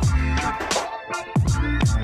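Background music: an electronic beat with deep kick drums that drop in pitch, sharp snare hits and held synth tones.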